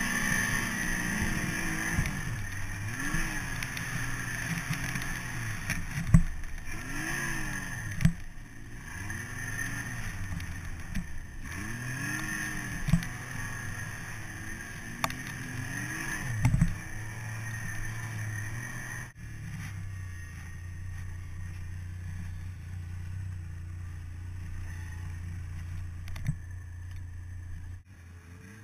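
Snowmobile engine revving up and down repeatedly as it ploughs through deep powder, with several sharp thumps along the way. A little past halfway it drops suddenly to a steady low running note.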